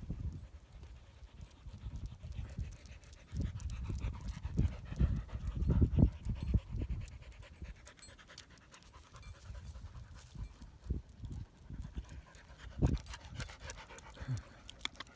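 A dog panting hard in the heat, with irregular low bumps that are loudest about six seconds in.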